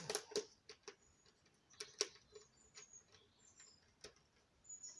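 A few sharp clicks and knocks from handling the chainsaw's controls and body while it is readied for starting, loudest at the start and about two seconds in. Faint short bird chirps sound in the background.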